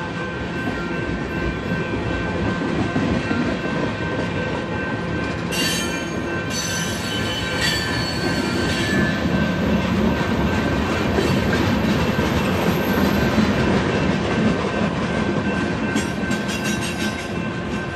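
Union Pacific freight train's cars rolling past, a steady rumble of steel wheels on rail with high squealing wheel tones. A few sharp clanks come about six to eight seconds in.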